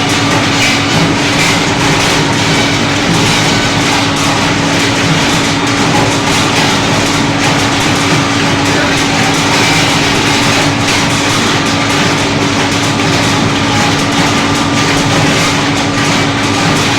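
Areca nut dehusking machine running steadily: a constant hum under a dense, even noise that does not change.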